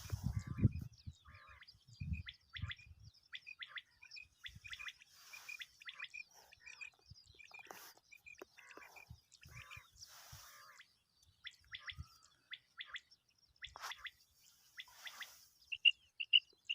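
Common quail calling: scattered short, high chirps, then near the end a quick run of loud, clipped notes.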